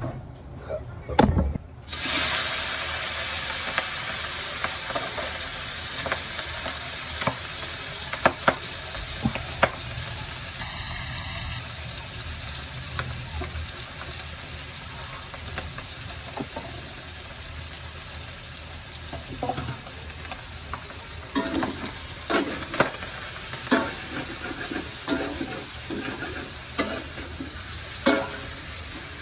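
Diced pork sizzling as it fries in a metal wok, after a sharp knock about a second in. From about twenty seconds in, a spatula stirs the pieces, adding frequent scraping clicks against the pan.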